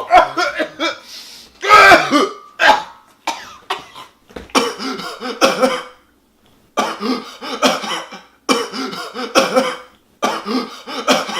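Coughing and throat clearing, cut up and looped: irregular coughs for the first few seconds, then after a short pause the same burst of coughing repeats about every 1.7 seconds.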